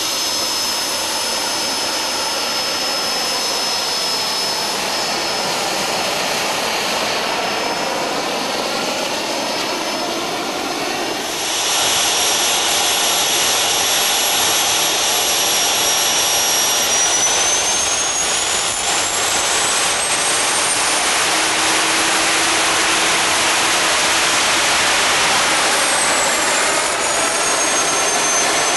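Home-built turbocharger-based GR-7 turbojet engine running steadily, with a high turbine whine over its jet noise. The level steps up about a third of the way in; past halfway the whine rises in pitch as the engine speeds up, holds there, then falls back near the end as it slows again.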